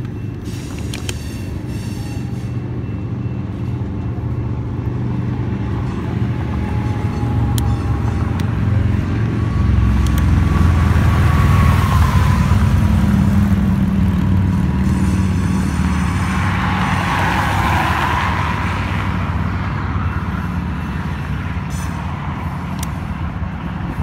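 Coal train hopper cars rolling past with a steady rumble of wheels on rail. About halfway through, motorcycles and a car pass close by on the road, swelling the noise for several seconds.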